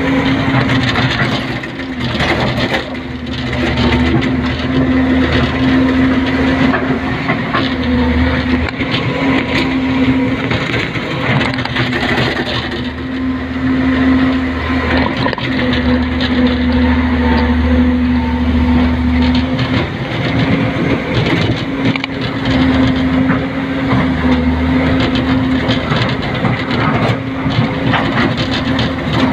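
Hydraulic excavator's diesel engine and hydraulics working, heard from inside the cab, with a steady hum and a low rumble that swells and eases as the machine takes load. Stones knock and clatter as the bucket digs into the rubble pile and loads the dump truck.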